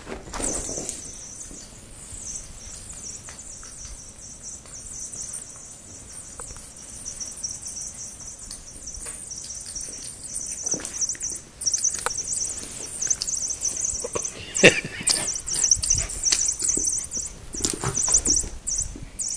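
Squeaky toy mouse (a cat toy) squeaking almost nonstop in high-pitched chirps as a dog plays with it, with scattered knocks and scrabbling on a rug; the loudest knock comes about 15 seconds in.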